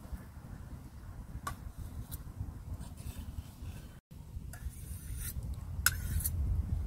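Faint scrapes and a few light taps of a knife working herb butter off a wooden cutting board and against a terracotta pot, over a steady low rumble. The sound cuts out completely for a moment about four seconds in.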